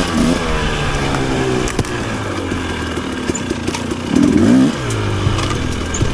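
Off-road dirt bike engine under the rider's throttle: revs drop just after the start, the bike pulls along at low revs, then one short burst of revs about four seconds in before settling again. A few sharp knocks and rattles from the bike over rough ground.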